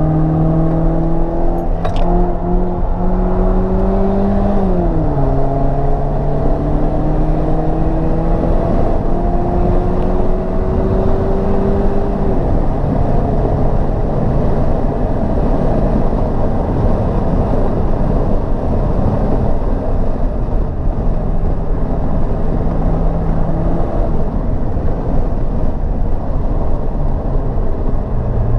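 Mercedes SLK R170's engine with an aftermarket exhaust, heard from inside the cabin under hard acceleration: its note rises, drops sharply at an automatic-gearbox upshift about five seconds in, then climbs slowly again. After about twelve seconds the engine note fades under steady wind and tyre noise at high speed.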